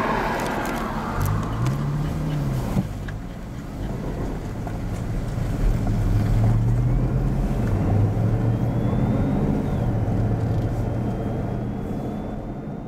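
A Hummer's engine running on an off-road trail, its pitch rising and falling twice as it is revved, with a few sharp knocks early on.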